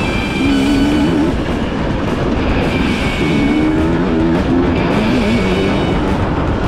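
Rock music with guitar, mixed over a dirt bike engine running with its pitch rising and falling as the revs change.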